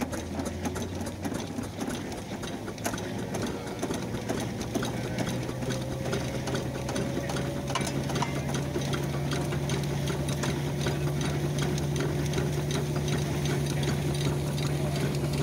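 Burrell single-crank compound traction engine running and driving a threshing drum by belt: a steady mechanical clatter with a fast run of sharp ticks. From about four seconds in, a low hum sets in and grows slightly louder while a higher tone rises a little in pitch.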